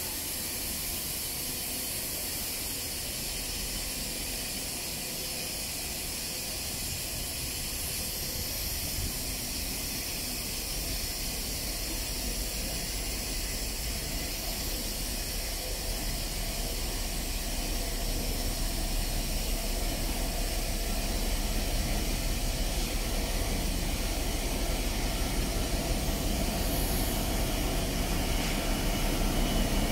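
GB Railfreight Class 66 diesel locomotive with its EMD two-stroke V12 engine, approaching slowly at the head of a freight train, its engine rumble growing steadily louder as it nears, over a constant hiss.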